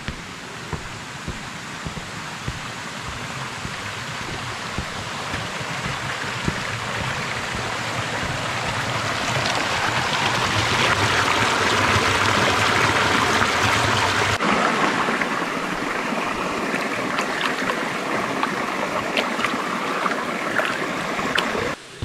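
Mountain stream rushing over rocks: a steady rush of water that grows louder over the first half, with its low rumble dropping away suddenly about two-thirds of the way through.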